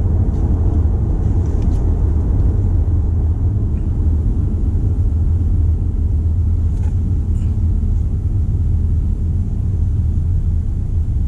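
Steady low rumble of road and engine noise inside the cabin of a Toyota C-HR with the 2.0-litre engine, being driven.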